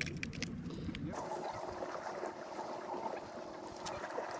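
A few light handling clicks, then steady seashore noise: wind on the microphone and water washing at rocks.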